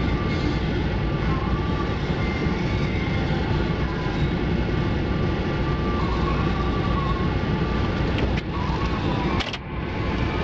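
Steady street noise heard from inside a stopped car: the car's engine running, with a large crowd of marchers passing ahead. The sound breaks off briefly near the end.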